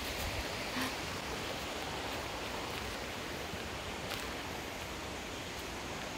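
Steady rushing of flowing creek water, an even wash of noise, with a couple of faint clicks.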